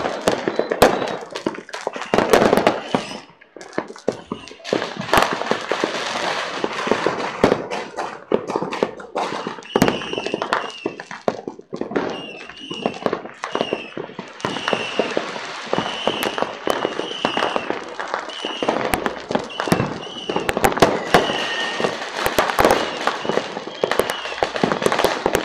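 Fireworks going off in a dense run of bangs and crackles. From about ten seconds in, a short high chirp repeats roughly once a second over them.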